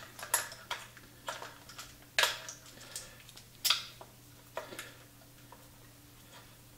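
Hands handling ignition wiring and small parts on a dirt bike frame: a string of sharp little clicks and taps, about seven in the first four to five seconds, then fewer, over a faint steady hum.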